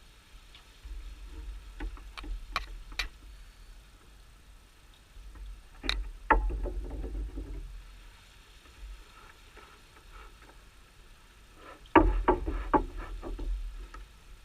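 Three bursts of sharp knocks and clicks, with a low rumble, about a second in, midway and near the end.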